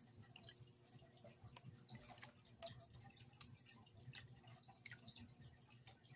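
Faint water sloshing and dripping in a plastic gold pan as black-sand concentrates are swirled, with scattered small ticks of water and grit.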